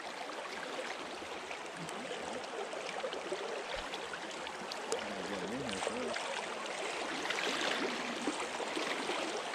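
Steady rushing of a trout stream's flowing current.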